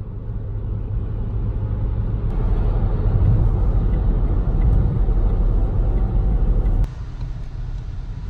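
Road and engine noise inside a Vauxhall car's cabin at motorway speed: a steady low rumble that builds over the first few seconds. It drops suddenly about seven seconds in to a quieter, slower drive.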